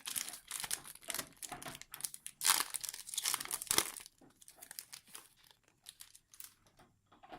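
A foil Yu-Gi-Oh Dark Saviors booster pack being torn open and crinkled by hand, densest for about the first four seconds, then a few lighter rustles and clicks as the cards come out.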